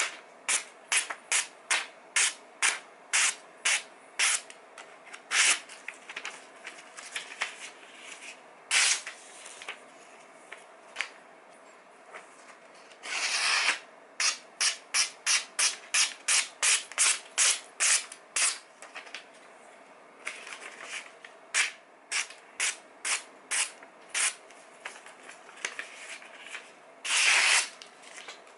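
A freshly sharpened kitchen knife slicing through magazine paper in quick strokes, about two a second, in several runs. A few longer rustling swishes of paper come in between, about 9, 13 and 27 seconds in. This is a paper-cutting test of the edge's sharpness.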